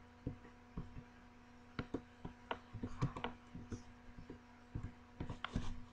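Computer keyboard keystrokes at an irregular pace as numbers are typed into a spreadsheet, over a faint steady electrical hum.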